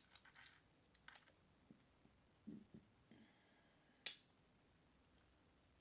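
Crab shell being cracked open by hand: a scatter of small sharp snaps in the first second or so, a short low sound midway, then one loud crack about four seconds in.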